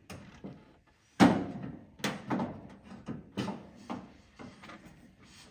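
Metal knocks and clunks from a paintless dent repair rod working behind a car's steel front fender: one loud clunk about a second in, then several lighter knocks.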